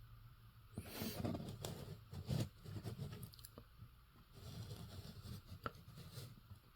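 Faint handling noise as a 1:400 diecast model airplane is turned around: light irregular clicks, scrapes and rustles.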